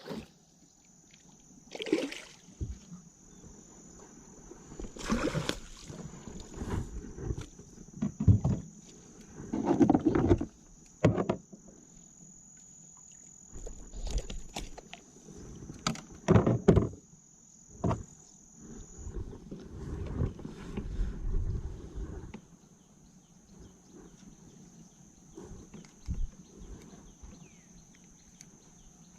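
Kayak on the water: irregular knocks against the hull and splashy paddling and handling noises, under a steady high-pitched insect drone.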